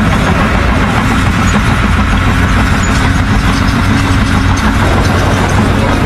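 A heavy engine running steadily at idle, an even low drone with no change in speed.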